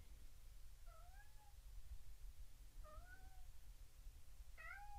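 A pet cat meowing faintly in the background: three short squawking calls about two seconds apart, each rising and then falling in pitch. She is crying for her supper.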